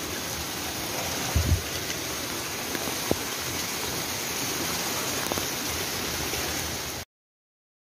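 Heavy rain falling steadily, with the rush of running water. A brief low thump about a second and a half in, and the sound cuts off abruptly near the end.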